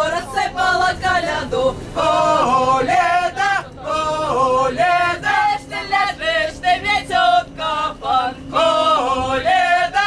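A group of men and women singing together in chorus, with held notes that rise and fall.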